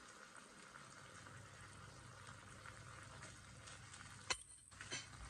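Faint steady sizzling of minced meat cooking in a nonstick frying pan. About four seconds in there are a couple of brief knocks as a silicone spatula starts stirring in the ketchup.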